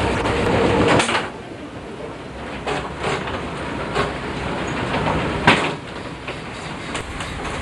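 Vintage electric tram running, heard from inside its wooden car: a loud rumble that drops away about a second in, then a quieter running noise with scattered clicks and knocks, the sharpest about two thirds of the way through.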